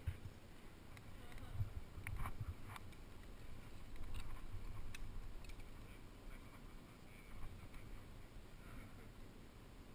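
Climbing rope being pulled up and clipped into a quickdraw's carabiner: a few faint clicks and scrapes of gate and rope, over a low rumble.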